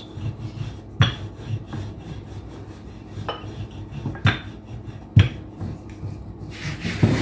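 Wooden rolling pin rolling over a stack of layered samosa pastry sheets on a stone countertop: a low rubbing rumble, broken by several sharp knocks of the pin against the counter.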